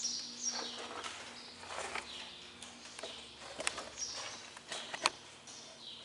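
Birds singing outdoors, with short downward-sliding whistled phrases repeated a few times. A few sharp clicks cut in, the loudest about five seconds in.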